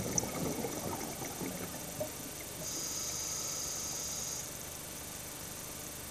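Scuba diver breathing through a regulator: bubbles from an exhalation for about the first second and a half, then a steady hiss of inhalation lasting a little under two seconds.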